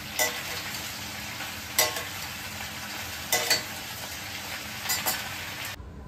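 Food sizzling as it fries in a stainless steel kadai, while a metal spatula stirs it and clinks sharply against the pan several times with a short metallic ring. The sizzle cuts off suddenly near the end.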